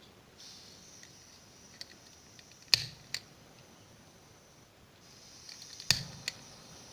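Butane gas soldering iron hissing faintly as gas flows. Two pairs of sharp clicks, a few seconds apart, come from the piezo igniter or switch being worked.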